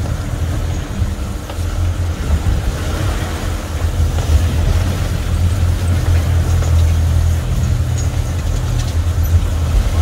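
Twin outboard motors running steadily under way, a low hum, mixed with wind buffeting and water rushing past the hull in rough seas.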